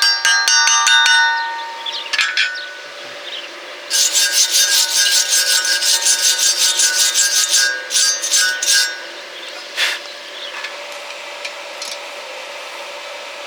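Fast back-and-forth scraping strokes, about five or six a second, for about five seconds in the middle, followed by a few single scrapes and clicks.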